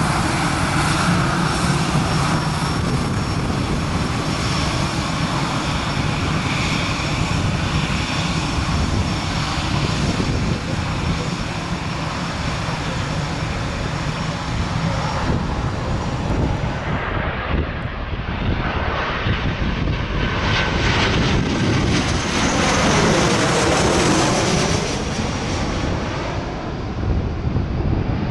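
Jet airliner engine noise: an Airbus A320-200's twin jet engines running steadily at high power as it moves off along the runway. About two-thirds of the way through the sound changes to another twin-jet airliner on approach.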